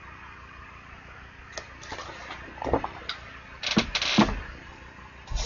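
Faint room hum, then from about one and a half seconds in a run of rustles, scrapes and soft knocks as paperback coloring books are handled and one is slid off a bookshelf, loudest about four seconds in.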